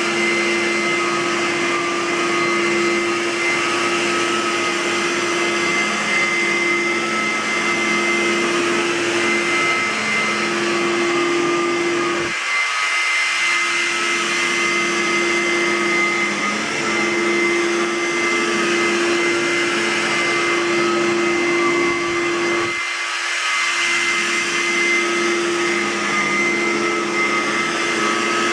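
Aerus Lux Guardian upright vacuum cleaner running steadily: an even motor whine with a thin high whistle over the rush of air. The lower part of the hum drops away briefly twice, about 12 and 23 seconds in.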